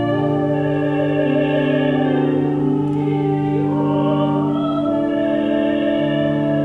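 Organ playing slow sustained chords that change every second or two, with a classical singer holding long notes with vibrato over it.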